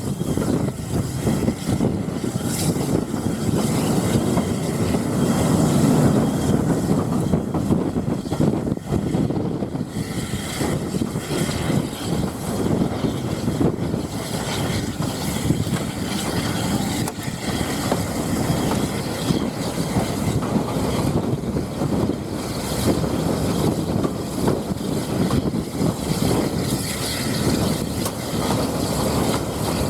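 Steam-hauled heritage passenger train running along the track, heard from on board: a steady rumble of the carriage and wheels on the rails.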